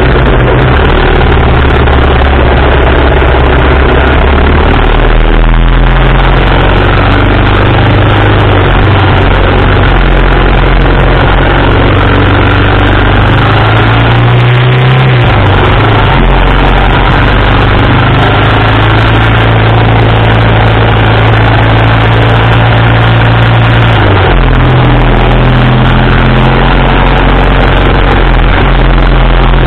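1987 BMW R80RT's air-cooled flat-twin boxer engine running on the road, heard close up from the engine bar, with steady wind noise. The engine note shifts several times, dipping briefly about halfway through and then rising again.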